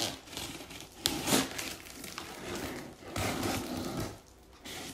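Rustling and crinkling of packaging being handled, in several short bursts: one at the start, a louder one about a second in, a longer one about three seconds in and a brief one near the end.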